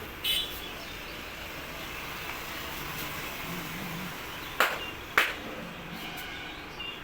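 Two sharp, loud smacks about half a second apart, from a barber's hands striking the head during a head massage, over a steady background hum.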